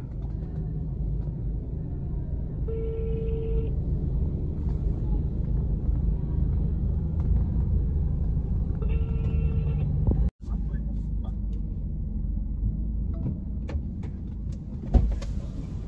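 Steady low rumble of a car's engine and tyres heard from inside the cabin as it creeps forward. Two identical short electronic tones sound about six seconds apart, and a few clicks and knocks come near the end.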